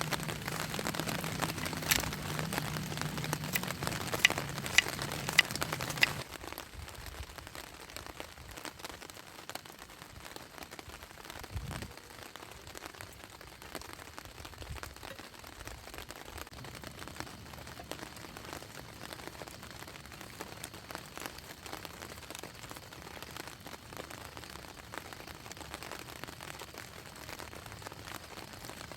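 Rain falling steadily as an even hiss. For the first six seconds it is louder, with a low hum and a handful of sharp ticks; it then drops to a quieter, even rain hiss.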